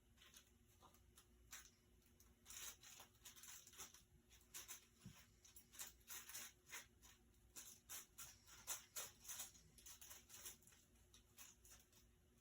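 Faint, irregular rustling and crackling: many small scratchy clicks at an uneven pace, busiest in the middle and thinning out near the end.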